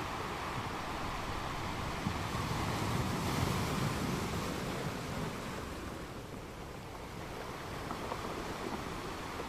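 Steady rush of sea water and wind, with wind buffeting the microphone; it swells a little about three to four seconds in and eases off about six seconds in.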